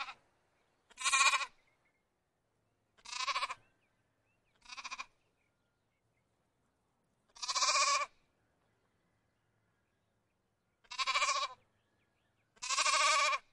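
Lamb bleating: about six short bleats, each under a second long, with silent gaps of one to three seconds between them.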